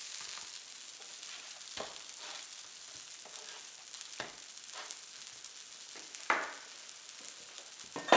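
Cheese arepas sizzling in butter on a flat griddle, a steady frying hiss, with a few short knocks and scrapes as they are turned with a plastic spatula and by hand, the loudest about six seconds in.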